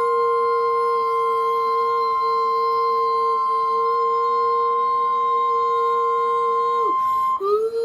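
Emergency Alert System warning tone, a steady single high tone that cuts off about seven seconds in. Over it a dog howls along in one long howl, with a wavering pitch. The howl breaks off briefly as the tone ends, then starts again with a rising slide.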